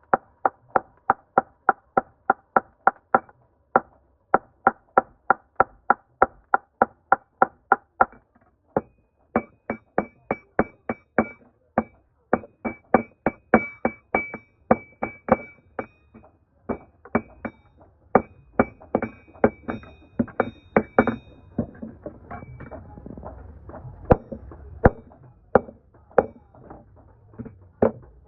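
Hammer blows on steel over an anvil while a crowbar is forged, about four ringing strikes a second with brief pauses. Near the end a steady rushing noise runs under lighter blows.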